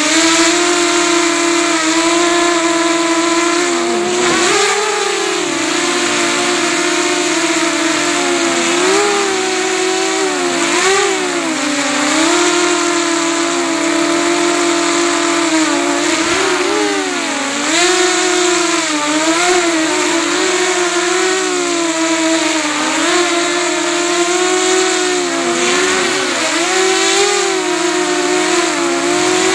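FPV freestyle quadcopter's four brushless motors and propellers whining close up on the onboard camera's microphone. The pitch holds steady, then dips and rises again and again as the throttle changes.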